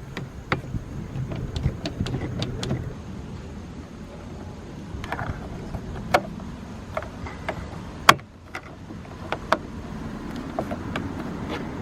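Scattered small clicks and taps of a wrench and plastic door trim as a bolt is refitted behind the interior door handle and its trim plate put back, with one sharper click about eight seconds in, over a steady low rumble.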